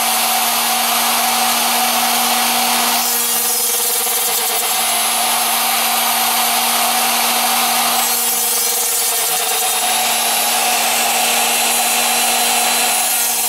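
Router on a home-built CNC mill running steadily while its half-inch bit cuts the deck of a foam surfboard blank. The cutting sound shifts slightly about every five seconds.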